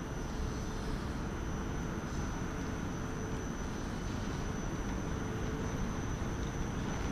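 Steady low rumble and hum of a standing electric train idling at the platform, with a thin high-pitched whine held throughout.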